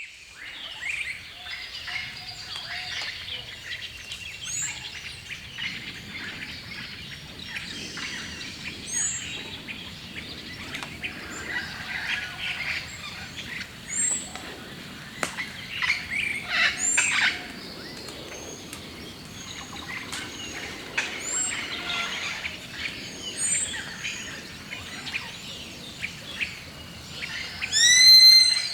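Several wild birds singing and chirping together over a soft outdoor hiss. Near the end there is a loud burst of quick repeated call notes.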